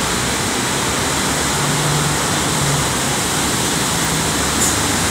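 Steady city street traffic noise, an even hissing roar, with a faint low engine hum rising about a second and a half in.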